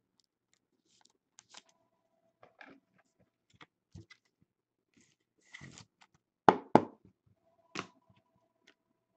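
Trading cards, clear plastic sleeves and hard plastic card holders being handled on a tabletop: light rustling and scattered taps, then two sharp knocks a little past the middle and a third about a second later as cards are set down.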